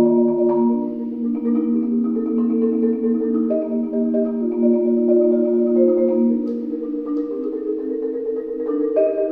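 Marimba played with four mallets: sustained chords, the notes shifting one after another every second or so, with a new, brighter chord struck near the end.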